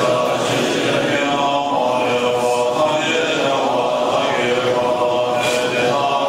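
A large assembly of Tibetan Buddhist monks chanting in unison, a steady group recitation in low held tones that rises and falls in phrases of about a second.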